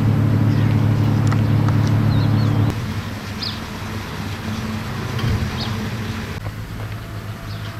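An engine running at a steady idle with a low hum, dropping to a fainter hum about three seconds in. Small birds chirp briefly over it.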